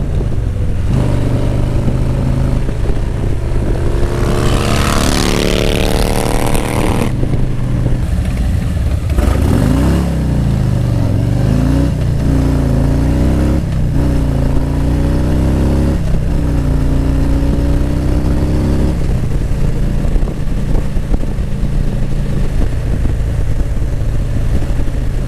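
Harley-Davidson Street Glide Special's Milwaukee-Eight 107 V-twin running while the motorcycle is ridden on the road. About four seconds in, the engine pitch climbs under acceleration with a rising hiss. Through the middle the pitch dips and climbs again several times.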